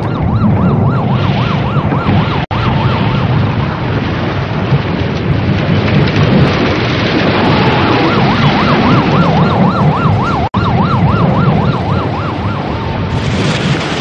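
Emergency-vehicle siren with a rapidly wavering pitch, heard near the start and again in the second half, over a loud continuous low rumble. Twice the sound drops out for an instant.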